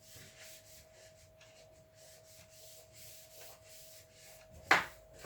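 Cleaning cloth wiping and scrubbing the inside of a fridge freezer in many quick strokes over a faint steady hum. About four and a half seconds in, a short loud squeak drops in pitch.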